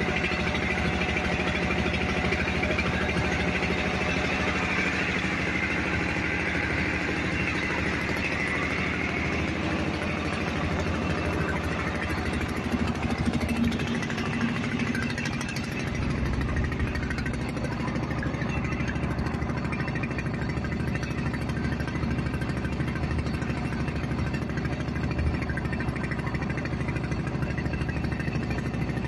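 The engine of a wooden fishing boat running steadily as the boat motors along, with a change in its low note about halfway through.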